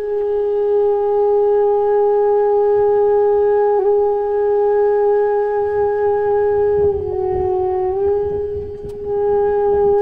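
Background music: one long held note on a flute-like wind instrument, dipping slightly in pitch about seven seconds in and returning a second later.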